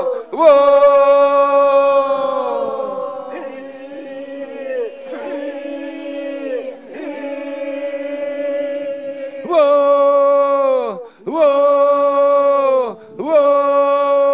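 A solo voice chanting long held notes, each phrase ending in a falling slide. It is softer in the middle and louder again for the last few phrases.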